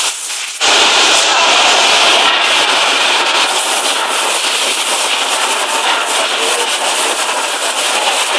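Steady, loud hissing machine noise on a factory floor. It starts abruptly about half a second in.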